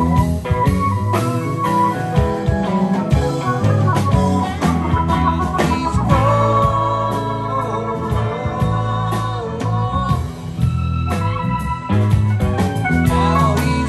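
Live rock band playing an instrumental passage: electric organ holding chords over guitars, bass and drums.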